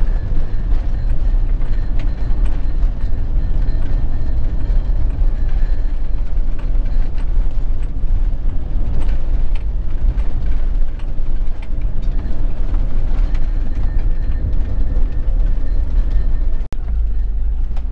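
Camper van driving, heard from inside the cab: a steady low engine and road rumble with light rattling of the van's fittings.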